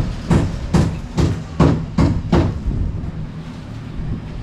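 Hammer blows, about six evenly spaced strikes a little over two a second, that stop about two and a half seconds in.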